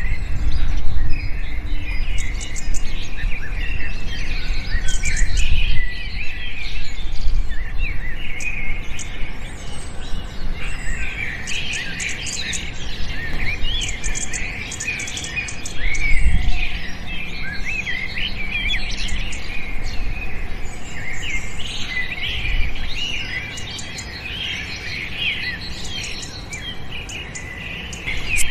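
Many small birds chirping and twittering at once, a dense, overlapping chorus of quick high calls that thickens in the second half, over a low rumble.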